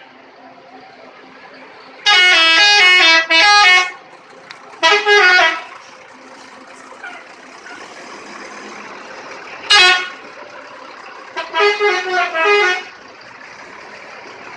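Bus telolet horn, a set of multi-tone air horns, playing short melodic blasts whose pitch steps from note to note. The longest blast comes about two seconds in and lasts nearly two seconds, followed by a short one around five seconds, a brief toot near ten seconds and a warbling run around twelve seconds, over a steady background hum.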